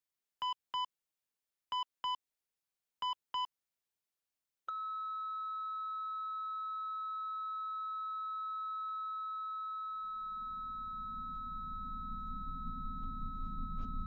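Electronic beeps in quick pairs, three pairs about a second and a half apart. A third of the way in they give way to one long steady high tone. Near the end a low rumble swells under the tone, with ticks coming faster and faster.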